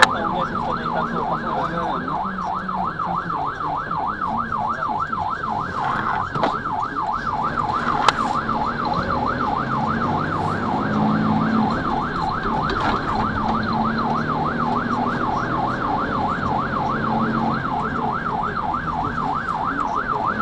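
Fire engine's electronic siren in a rapid yelp warble, heard from inside the cab, with the truck's diesel engine running underneath.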